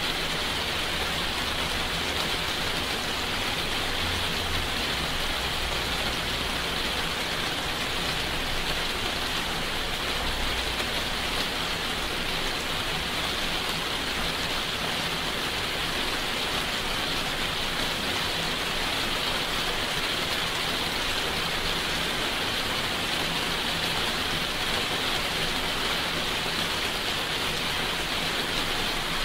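Steady rain falling, an even hiss that does not let up, with a faint low rumble at times.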